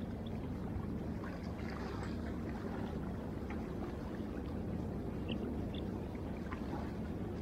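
Water lapping and gurgling against a kayak's plastic hull, with faint scattered small splashes over a steady low rumble.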